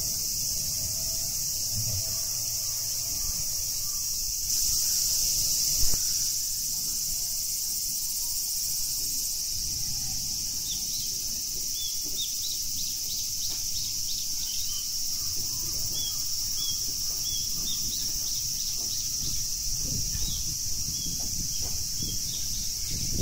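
A steady, high-pitched insect chorus, with short bird chirps in the second half and a single brief knock about six seconds in.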